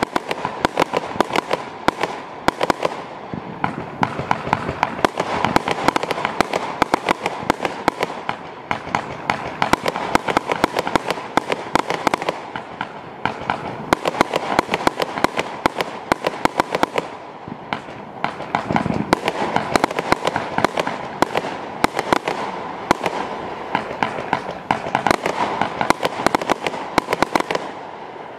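Celtic Fireworks Mish Mash Mini, a 100-shot 16 mm mixed-effect barrage cake, firing: a rapid, unbroken run of launch shots and small bursts, several a second.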